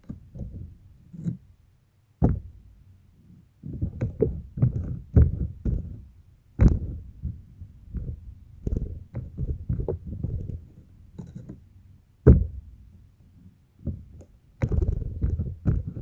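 Slime being squeezed and kneaded by hand, giving irregular wet squelches with a few sharp pops, the loudest near the end.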